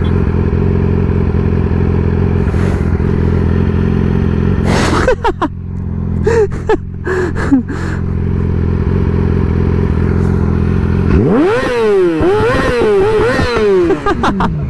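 Sportbike engine running steadily at cruising speed, then from about eleven seconds in revved hard several times, the pitch sweeping up and down in quick throttle blips before falling back near the end.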